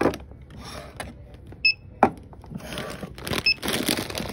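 Checkout barcode scanner beeping twice, a short high beep each time an item is scanned, among the knocks and clatter of canned goods being handled on the counter.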